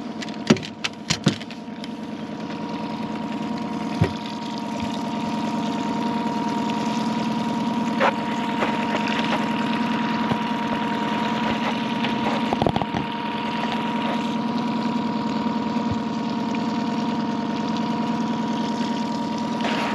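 Outboard motor running steadily at idle, a constant drone with a thin whine over it. A few sharp clicks and knocks come in the first second or so, with single knocks later.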